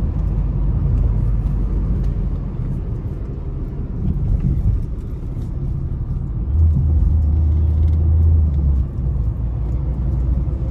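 Road and engine rumble heard inside the cabin of a Chevrolet Onix Activ cruising at about 50–65 km/h. A deeper low hum swells for a couple of seconds past the middle.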